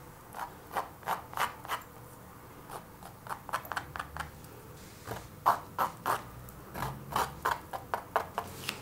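A wooden stick dabbing and scraping through wet acrylic paint on a canvas: a string of soft, irregular scratches and light clicks.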